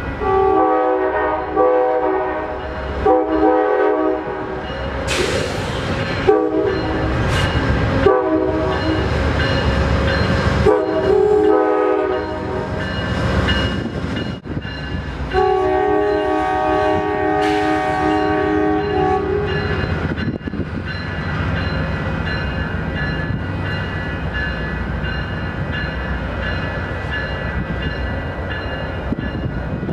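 Amtrak GE Genesis diesel locomotive sounding its air horn in a series of sustained multi-note blasts, the last about four seconds long, as it rolls past. The locomotive's engine and wheels keep rumbling after the horn stops.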